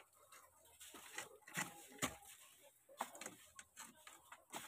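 Irregular light knocks and clicks, several a second, with no steady sound underneath.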